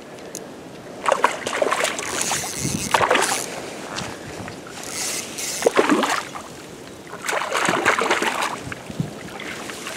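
River water splashing and sloshing in irregular bursts, four or five in a row with sharp starts, over a steady background hiss.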